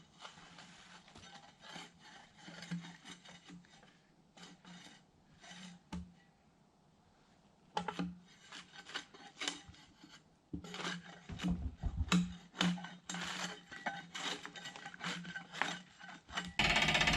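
Repeated rasping, scraping strokes of a hand tool on wood, irregular and growing louder in the second half. Near the end a loud, steady machine noise starts abruptly.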